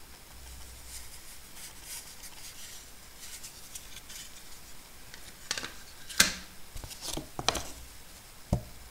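Unboxing handling noise: a Kingston SSD and its paper leaflet handled with cloth-gloved hands. Soft rustling, then a quick run of sharp crinkles and clicks from about halfway in, the loudest just past six seconds, and a dull thump near the end.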